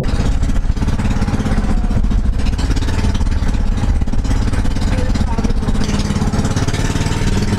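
Engine of a motorized outrigger boat (bangka) running steadily under way, with water rushing along the wooden hull.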